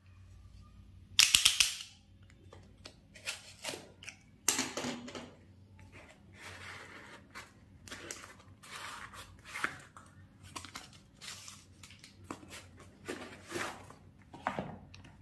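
Cardboard mailer envelope being handled and opened: rustling, scraping and tearing of paper and cardboard in irregular bursts, the loudest a little over a second in and another at about four and a half seconds.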